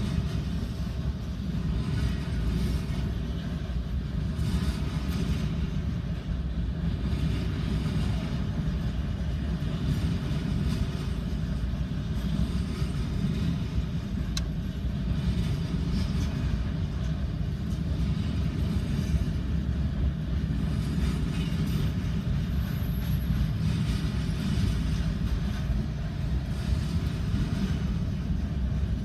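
Freight train cars rolling past on the track: a steady, continuous rumble of wheels on rail.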